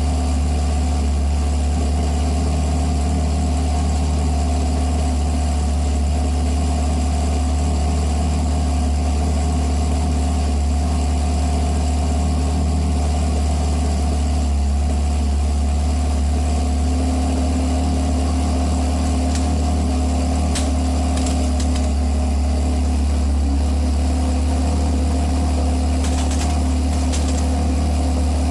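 Ferrari 360's V8 idling steadily through an MS-Racing Ver.4 aftermarket exhaust, an even low hum that holds without revving. A few faint ticks come through in the second half.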